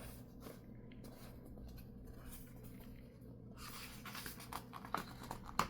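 Faint rustling and small clicks of paper being handled as the pages of a printed catalog are moved. The handling grows busier from about three and a half seconds in, with a sharper click near the end.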